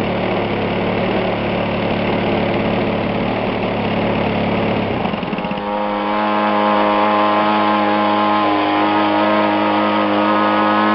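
ZDZ 40 single-cylinder two-stroke petrol engine of a large model aeroplane, running with its propeller turning. About five seconds in, the rough, noisy note gives way to a louder, steadier and clearer one, which shifts slightly in pitch near the end.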